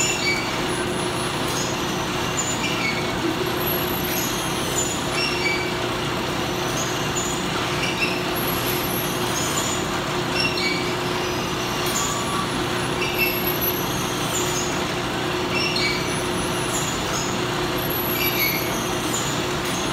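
Factory machinery running beside a vertical sachet-packing machine: a steady hum with a held tone and short high-pitched sounds recurring every two or three seconds.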